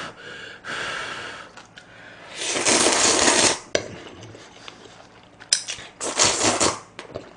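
A person slurping stir-fried instant noodles from chopsticks: a short slurp at the start, a long loud slurp about two and a half seconds in, and another near the end.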